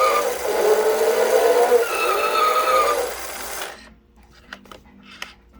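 Toy Batmobile's built-in speaker playing an engine-revving sound effect, two rising revs over a steady whine, that cuts off sharply about three and a half seconds in, followed by a few faint clicks.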